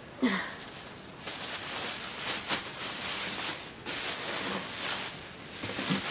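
Bubble wrap being gathered and crumpled by hand: a continuous crinkling rustle of plastic, with a few sharper crackles.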